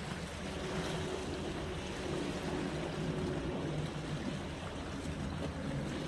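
Sea waves washing against a rocky shore: a steady surf noise with a low, even hum beneath it.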